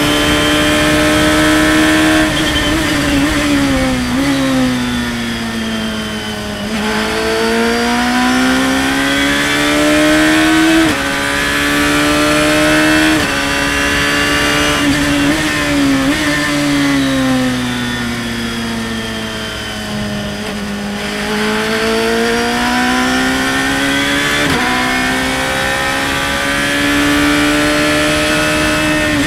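Radical open-cockpit race car's engine at high revs, heard from the cockpit. Its pitch climbs under acceleration and jumps abruptly at gear changes, and it falls away twice as the car slows, a few seconds in and again past the middle.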